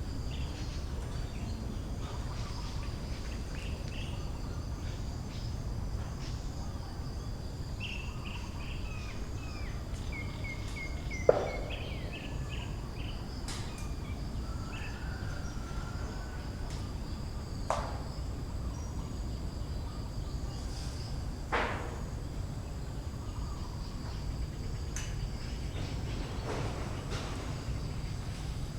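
Outdoor ambience: a steady high-pitched insect drone over a low rumble, with a short run of bird chirps around the middle. Three sharp knocks stand out, the first and loudest about eleven seconds in.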